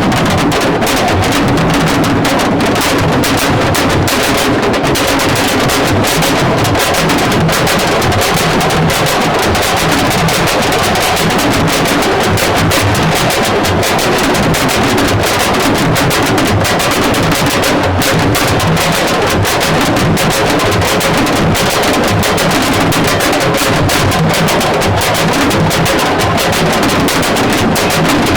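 Music driven by fast, dense drumming, running at a steady loud level.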